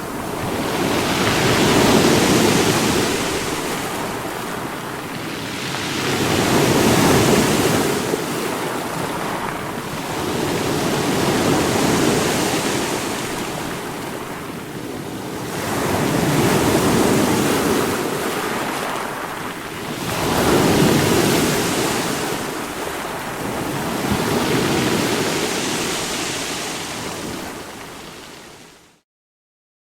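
Ocean surf breaking on a shore, each wave swelling and ebbing about every five seconds. The sound cuts out briefly near the end.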